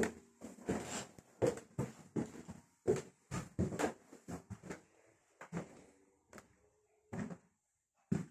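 Footsteps climbing wooden stairs, a quick regular tread of about two steps a second that thins out to a few spaced steps on the floor above in the second half.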